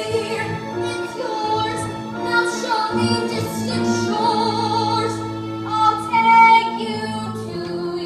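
A woman singing a musical-theatre song over instrumental accompaniment, holding long notes with vibrato.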